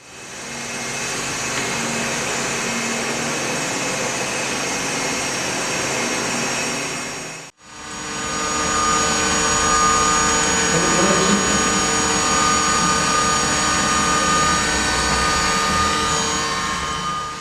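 Makino A88 motor spindle running steadily at speed: a smooth hum with several steady high whining tones, in two takes separated by a brief fade about seven and a half seconds in.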